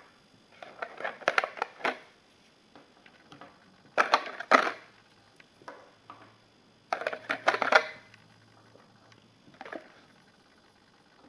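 Clear plastic blister tray crackling and clicking as it is handled and flexed, in three main bunches of sharp crackles with a weaker one near the end, along with small clicks of miniature figures being set down on a wooden table.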